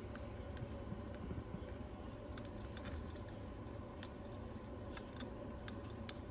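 Faint, scattered small clicks and taps of tools and small parts being handled during iPad repair work, over a steady low hum.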